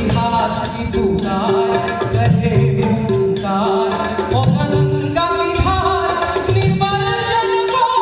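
A woman singing a melody into a microphone, her voice gliding and ornamenting the notes, over hand-drum strokes and a short note that repeats about twice a second.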